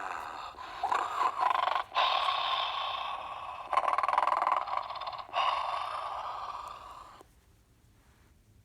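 Clifford the Big Red Dog bedtime toy playing its recorded snoring: about five long snores one after another, stopping suddenly about seven seconds in.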